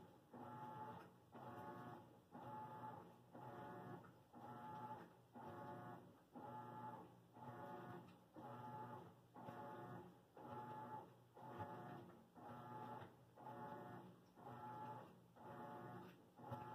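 Laundry machine running faintly in a steady rhythmic cycle. Each stroke is a short hum of about half a second, repeating about one and a half times a second.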